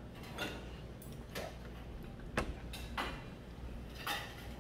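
Scattered short clicks and clinks of metal chopsticks and dishes being handled on a table, about seven separate taps.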